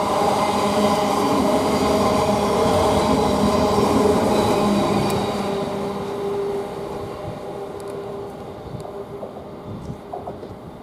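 Class 700 electric multiple unit pulling away, its traction motors giving a hum of several steady tones over rail noise. The sound is loud at first, then fades from about six seconds in as the train leaves.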